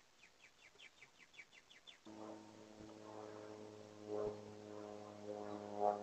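A small songbird sings a trill of quick, evenly spaced high notes, each sliding down, about five or six a second. About two seconds in, the trill gives way abruptly to a steady low hum with several overtones, which is louder, with a few soft knocks over it.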